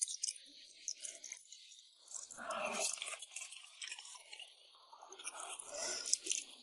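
Close-up chewing of chili-oil rice noodles: a stream of small wet mouth clicks and smacks, with two louder, fuller stretches of chewing about two seconds in and again near the end.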